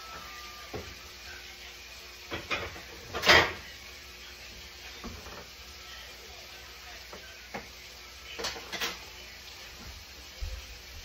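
Dishes and kitchen things being handled: a handful of scattered knocks and clatters, the loudest a short noisy clatter a little over three seconds in.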